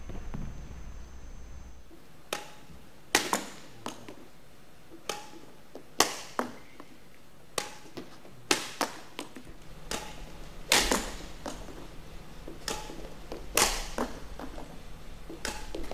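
Badminton rackets striking shuttlecocks in a net-kill drill: about fifteen sharp hits at irregular spacing, some in quick pairs.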